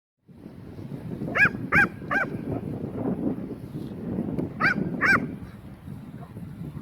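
Dog's squeaky toy squeaking five times, short rising-and-falling squeaks in two bursts (three quick ones, then two about three seconds later), over a low rumbling noise.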